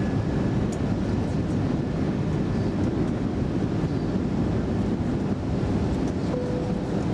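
Steady rushing cabin noise inside an Airbus A320 airliner in flight: engines and airflow over the fuselage, heard from a window seat.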